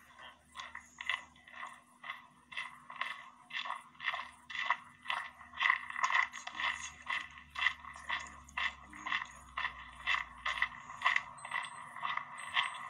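Footsteps crunching on a dirt-and-gravel path, an even walking rhythm of about two to three steps a second.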